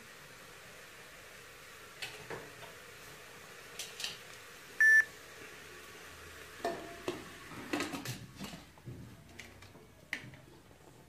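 A short electronic beep about five seconds in, the loudest sound, followed by metal clinks and knocks as the lid of an aluminium pressure cooker is set on and closed.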